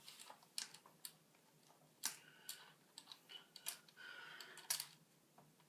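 Small screwdriver driving a screw back into a laptop's bottom case: faint, irregular clicks and ticks as the screw and tool turn, with a brief scrape about four seconds in.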